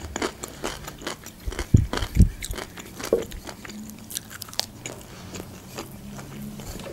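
Close-miked chewing of a crunchy pickled cucumber: a run of wet crunches and mouth clicks, with two deeper thumps about two seconds in.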